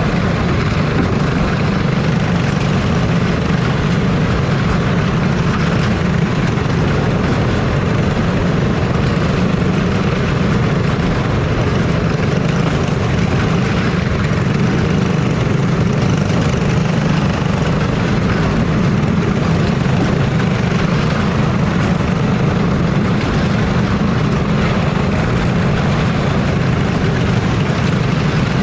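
Small dirt-track sprint car engine, heard from the car's own dash, running steadily at low revs with no revving, as the cars roll slowly in a line.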